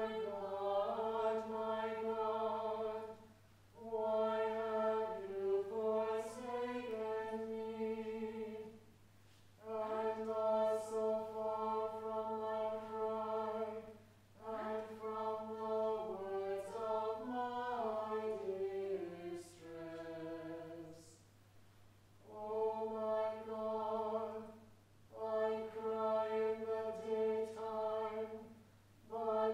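Church choir chanting a psalm, with organ, in Anglican chant style. The voices hold long notes in chords, moving at the end of each phrase, and pause briefly every few seconds.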